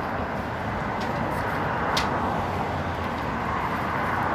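Steady rushing background noise with a single sharp click about two seconds in.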